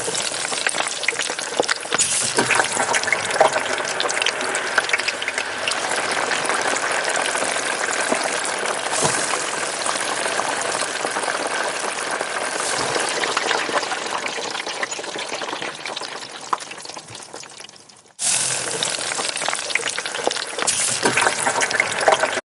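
Spinach pakoras deep-frying in hot oil: a dense sizzle full of small crackles. It dies down towards eighteen seconds in, then breaks off and comes back loud.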